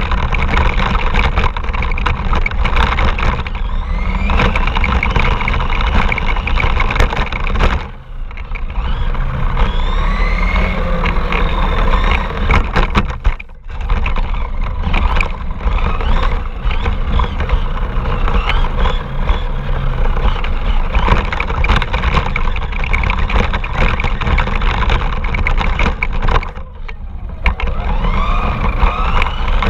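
Radio-controlled car driving, heard from a camera mounted on it: a constant loud rumble and rattle with a motor whine that rises and falls with the throttle. The level drops briefly about 8 s, 13 s and 27 s in, as the throttle eases off.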